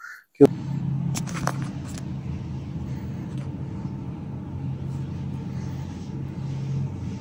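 Steady low rumble of motor vehicle noise, with a few sharp clicks about a second in.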